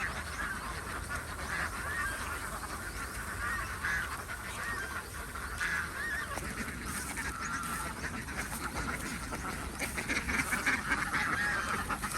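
A flock of domestic waterfowl calling over and over in short honks and quacks, growing busiest near the end.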